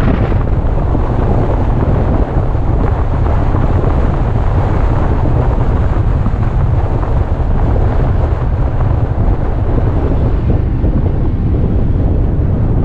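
Wind buffeting the microphone of a moving car, a loud steady low rumble without a break.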